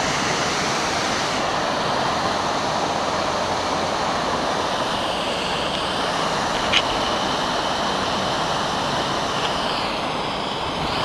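Waterfall: a steady rush of water falling down a cliff face.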